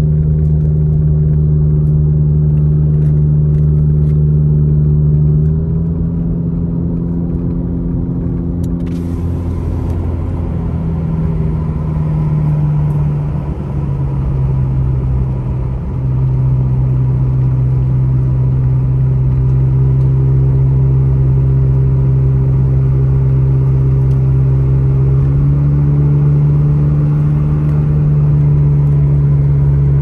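Car engine and tyre noise heard from inside the cabin while driving up a mountain highway: a steady low engine hum whose pitch steps down around the middle and back up near the end.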